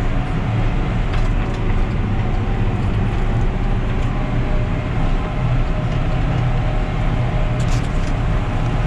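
Tractor engine running steadily at road speed, with tyre and road noise, heard from inside the cab.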